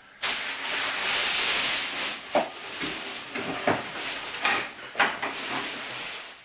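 Brown packing paper and cardboard rustling and crinkling as a flat-pack box is unpacked, loudest in the first two seconds. Several light knocks follow as wooden bed parts are lifted out.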